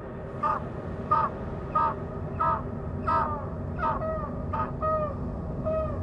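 A seabird calling over and over, about one and a half calls a second, harsh cawing calls that turn into calls sliding down in pitch after about four seconds, over a steady low rumble.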